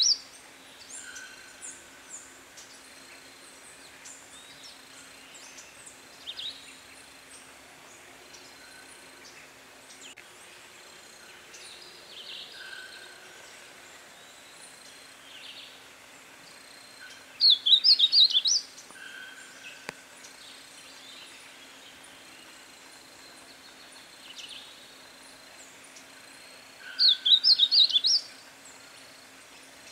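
Negrinho-do-mato (blackish-blue seedeater) singing: a short, fast song of quick high notes about a second long, heard twice, over fainter calls of other birds and a low steady hum.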